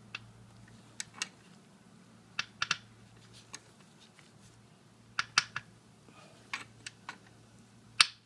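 Hand tools clicking and clinking on metal as a fastener is tightened back on during a motorcycle oil change. The clicks are sharp and irregular, some single and some in quick clusters, with the loudest one near the end.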